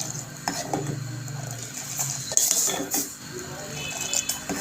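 Metal ladle clinking and scraping against a pot as milk tea is stirred continuously, with a few irregular clinks.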